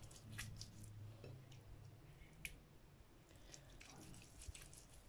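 Near silence with faint wet squishing and scattered small clicks: hands rubbing a moist scrub of grated potato and milk over the skin.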